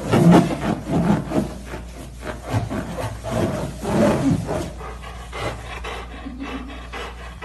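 A large rubber balloon squeaking and groaning in irregular rubbing bursts as a dog's chin and chest press and slide against it, quieter in the last few seconds.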